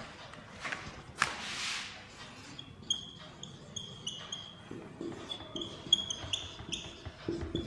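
Dry-erase marker squeaking on a whiteboard in a run of short, high strokes as a heading is written, starting about two seconds in. Before that, a couple of brief rubbing swishes.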